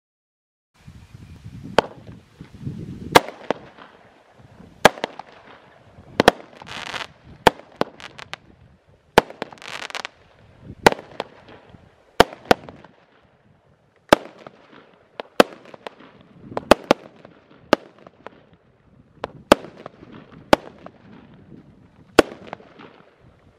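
Consumer fireworks cake from Bright Star's Six Pack firing after about a second of silence. It sends up a shot roughly every second or so, each ending in a sharp bang as the small aerial shell bursts, over low launch rumbles. A longer hissing crackle comes about seven seconds in and again about ten seconds in.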